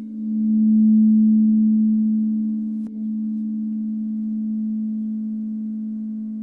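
Frosted quartz crystal singing bowl ringing with one steady, pure hum as a mallet circles its rim, swelling in the first second. A light click comes about three seconds in, then the tone holds and slowly fades.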